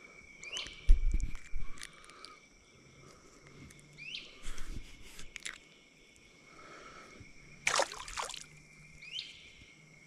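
Outdoor pond ambience: a steady high insect drone, with a short rising call repeated three times about four seconds apart. Over it come handling knocks and clicks, a thump about a second in, and a brief loud splash-like rush of noise near the end, typical of handling a fish at the water's edge.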